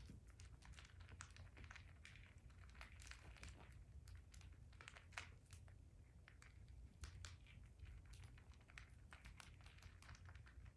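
Baby rabbits eating pellets and hay: faint, irregular crunching and crackling of small bites and chewing.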